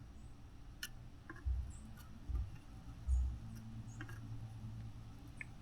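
Light handling noises at a workbench: scattered faint clicks and taps, with three soft low bumps about one and a half, two and a half and three seconds in.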